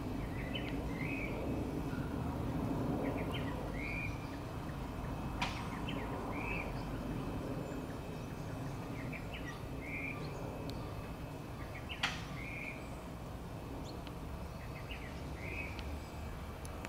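Low rumble of a Boeing 737-200's Pratt & Whitney JT8D turbofans, fading as the jet draws away. Over it a bird repeats a short call, a few quick chirps and a curved note, about every three seconds. Two sharp clicks fall about five and twelve seconds in.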